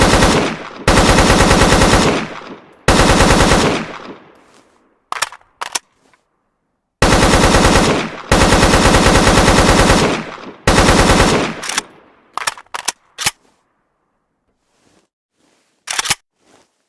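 AK-47 assault rifle firing on full automatic: several long bursts lasting a second or two each, fading out after each burst, with a few single shots in between and one last shot near the end.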